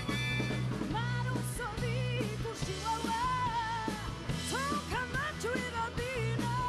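Rock band playing live with electric guitars, bass and drums. A harmonica line ends about half a second in, and a woman's singing voice comes in about a second later, singing a song in Corsican.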